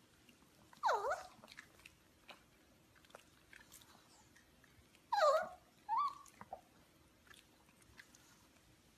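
Small fluffy puppy giving three short high whines: one about a second in, then two more close together around five and six seconds.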